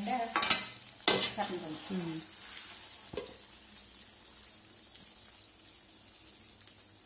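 Beaten rice (poha) deep-frying in hot oil in a steel kadai, with a steady sizzle. A slotted steel ladle clanks and scrapes against the pan a few times in the first second or so as the flakes are stirred.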